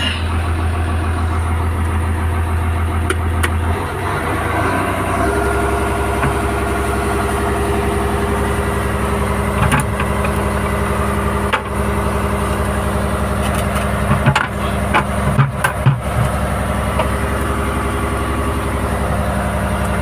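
Diesel engine of a Hyundai Robex 300LC crawler excavator running steadily, heard from inside its cab, the pitch of its hum shifting about four seconds in. A few sharp knocks and rattles come between about ten and sixteen seconds in.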